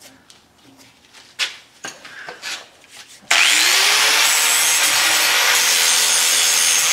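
A few light knocks, then about halfway through an angle grinder switches on, its whine rising as the motor spins up, and it grinds the cast iron casting with a steady, loud hiss. The grinding cleans excess metal off a freshly poured cast iron cylinder head.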